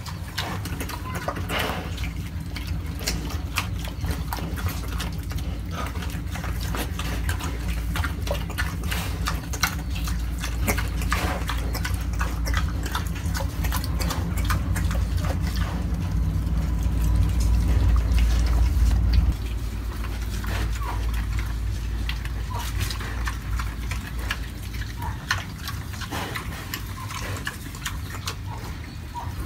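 A domestic pig chewing and crunching green vegetable stalks, with a dense, irregular run of chomping clicks. A steady low rumble underneath cuts off suddenly about two-thirds of the way through.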